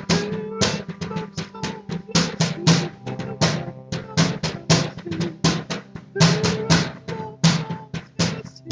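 Background music carried by a busy, driving drum-kit beat of snare and bass drum hits coming thick and irregularly, over a steady low sustained tone.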